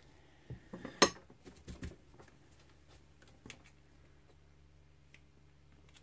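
Small metal tools being handled on a work mat: a few light clicks and taps in the first two seconds, the sharpest about a second in, as the tweezers are put down and the soldering iron is picked up, then quiet with a faint steady hum while the joint is soldered.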